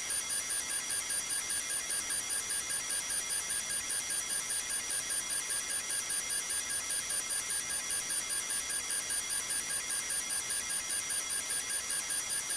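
Steady high-pitched electronic tones sounding together, several of them flickering in a rapid pulse, unchanging throughout.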